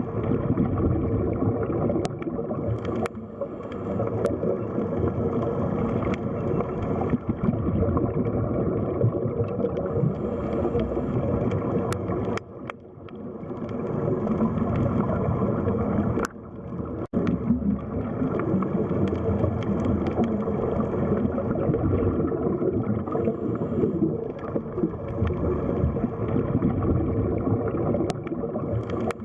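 Underwater sea ambience: a continuous, muffled rumble and gurgle of water heard from below the surface, with a few faint clicks. It dips briefly twice near the middle.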